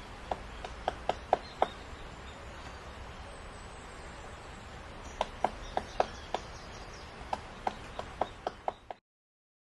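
Lineated woodpecker pecking at wood, single sharp knocks in irregular clusters a few per second, with a pause of a few seconds between the first cluster and the later ones.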